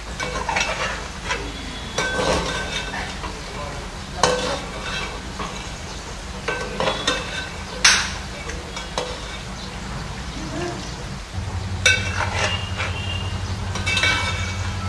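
Steel slotted spoon stirring chicken pieces in a steel pot, scraping and clinking against the metal in uneven strokes, with one sharper clink about eight seconds in, while the chicken sizzles.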